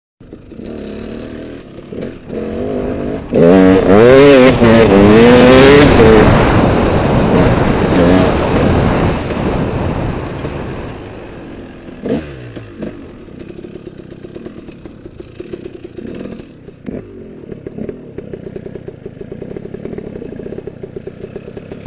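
Dirt bike engine running as the bike is ridden along a rough trail. It revs hard, rising and falling, for a few seconds near the start, then runs at lower revs with small clattering knocks.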